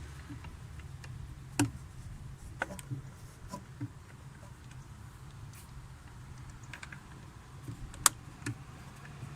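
A few irregular clicks and small metallic taps of a hand tool working the two T20 Torx screws that hold the TMAP sensor. The sharpest click comes about eight seconds in, another about a second and a half in.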